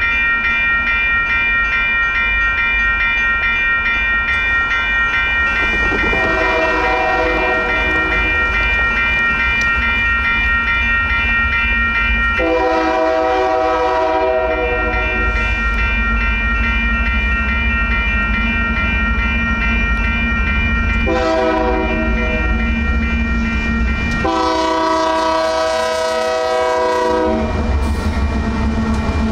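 Grade-crossing warning bells ringing steadily while an approaching Union Pacific freight locomotive blows its multi-note air horn in the standard crossing signal: two long blasts, a short one, then a long one. The rumble of the locomotive and train swells near the end as the lead unit, UP 6337, reaches the crossing.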